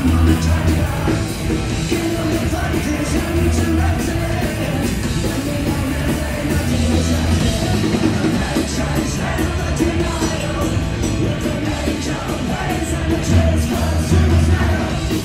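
Punk rock band playing loud live, a singer's voice over the music.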